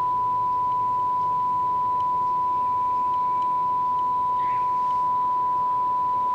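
Steady pure 1 kHz test tone, the signal generator's audio test tone used while aligning a tube radio's FM stage, holding one pitch at an even level.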